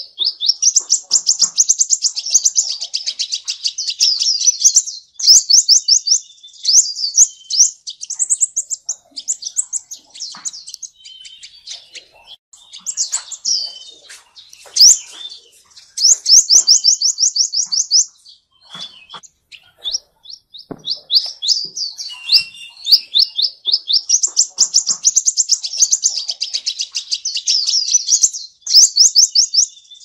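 Sunbird singing: runs of rapid, high-pitched sweeping notes, each run one to four seconds long, repeated with short pauses between.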